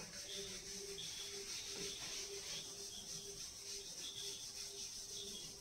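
A board duster wiping chalk writing off a chalkboard: a steady rubbing hiss.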